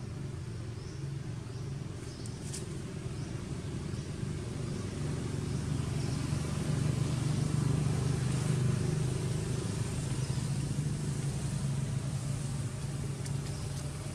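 Low, steady engine drone of a motor vehicle, growing louder through the middle and easing off slightly near the end.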